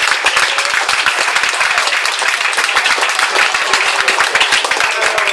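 A crowd of people applauding: dense, steady hand-clapping.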